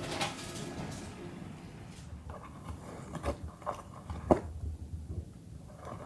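A few scattered soft crunches and taps, spaced irregularly, as a kitten bites and claws at the torn edge of a cardboard box.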